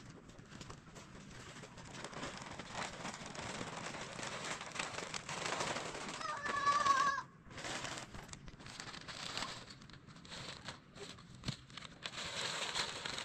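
Plastic sheeting rustling and crinkling as it is pulled and spread over a stack of feed sacks, with many small crackles.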